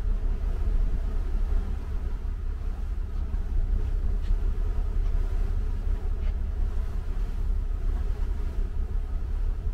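Steady low rumble of a boat's engine, with two faint short ticks around the middle.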